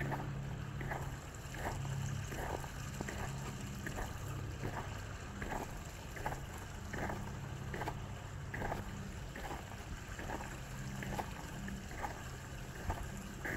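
Footsteps at an even walking pace, about one and a half steps a second, over snow and ice. A low steady rumble runs underneath.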